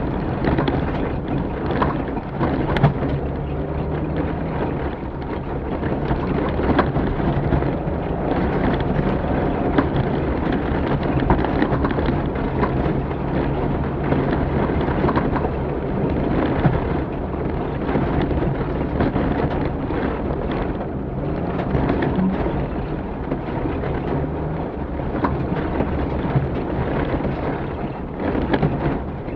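Off-road rally vehicle driving over rough ground: its engine runs under a constant heavy rumble and rattle, with scattered knocks and clatter.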